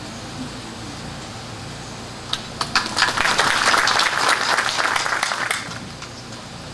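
Audience applauding: a short round of hand-clapping that starts a little over two seconds in, lasts about three seconds, then dies away.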